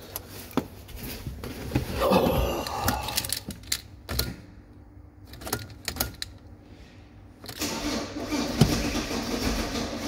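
Keys jangling and clicks in a 2006 VW Crafter van's cab, with a louder spell of rustling and knocks about two seconds in. From about seven and a half seconds the Crafter's diesel engine is turned over by the starter, cranking again now that a blown fuse has been replaced.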